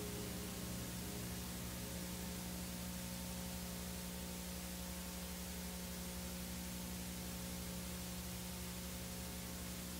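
Steady tape hiss over a low electrical hum, with no music: the background noise of a VHS tape between logos.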